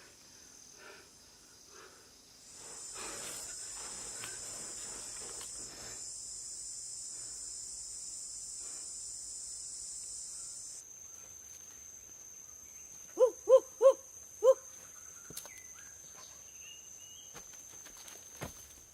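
Insects, such as crickets or cicadas, calling steadily in a high, hissing band that drops to a thinner single high tone a little after the middle. Four short, loud, pitched calls from an unidentified animal come quickly one after another near the two-thirds mark.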